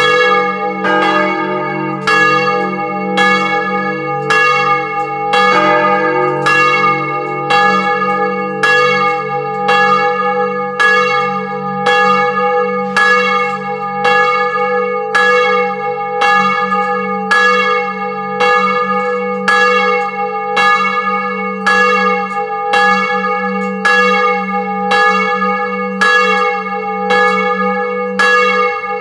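Old bronze church bell swung full-circle for the prayer ringing and heard close up inside the belfry. Its clapper strikes about once a second, and each loud stroke rings on into the next with a long, many-toned hum.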